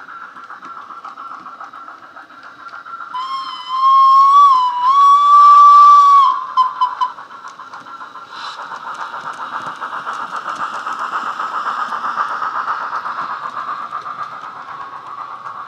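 Hornby K1 model steam locomotive's DCC sound decoder, running the Wheeltappers sound file through a small speaker in the tender: a loud two-part steam whistle, a short wavering note and then a longer steady one. From about eight seconds in, rapid chuffing and running noise swell and fade as the locomotive and its coaches pass.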